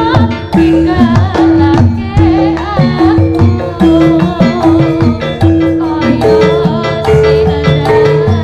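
Live Javanese jaranan music: hand-played kendang drumming under a repeating two-note pattern on tuned metal percussion, with a wavering melody line above.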